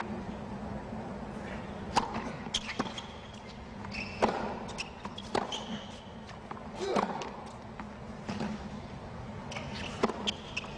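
A tennis rally on a hard court: a ball struck back and forth by racquets, a sharp pock about every one to two seconds, over a hushed stadium crowd.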